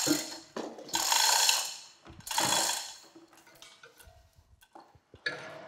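Chain hoist ratcheting in three loud strokes as it lifts a heavy cast-iron cane-mill roller, then fainter clicks and a sharp clank near the end.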